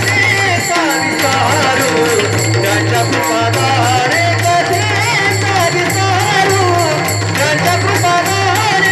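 Warkari kirtan music: a powerful voice singing a devotional melody over a steady drum beat and rhythmic small hand cymbals (taal).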